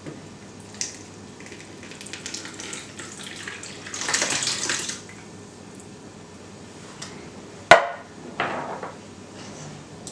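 Canned oranges and their juice pouring and splashing from a can into a plastic mixing bowl, heaviest about four seconds in, with a short second splash near the end. A single sharp knock near the end, the loudest sound, is most likely the can striking the bowl.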